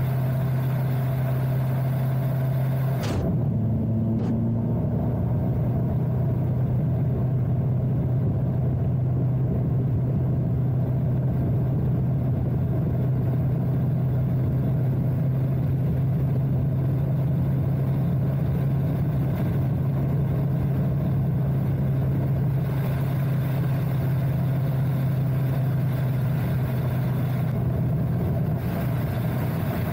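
Kawasaki GTR 1400's inline-four engine running steadily at highway cruising speed, with wind and road noise. The engine note shifts briefly about three seconds in.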